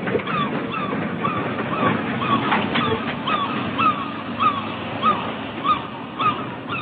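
A flock of gulls calling, short sharp rising-and-falling calls about two a second, over a steady rushing noise.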